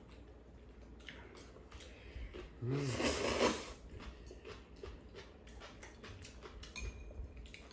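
Stir-fried ganjjamppong noodles being eaten: one louder slurp about three seconds in, led by a brief low vocal sound, amid quiet chewing and small clicks of chopsticks on bowls.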